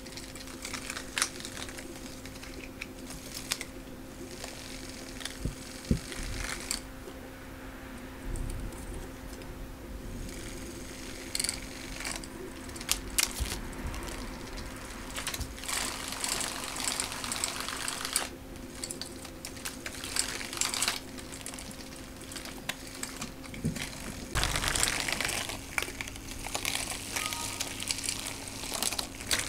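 Cats batting at a plastic cat toy with a feather lure: irregular light taps, clicks and rustling of paws, feathers and carpet, over a faint steady hum.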